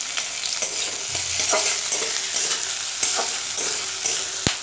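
Chopped onion sizzling in hot mustard oil in a metal kadai, stirred with a spatula that scrapes across the pan, with a single sharp click of metal near the end.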